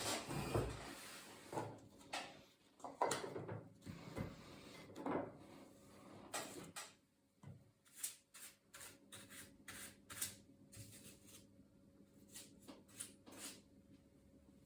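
Irregular handling noises from a laptop being worked on by hand: scattered clicks, knocks and scraping rubs of its parts, with a run of sharper clicks in the second half.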